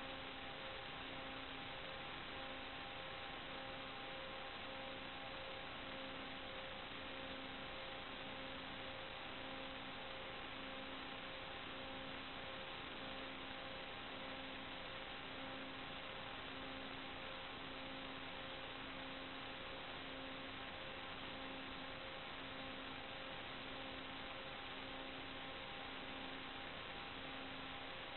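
Steady electronic hiss with faint constant hum tones and a low tone pulsing on and off about every second and a half: noise on the audio channel of an analog FPV video link, with no sound of the drone itself.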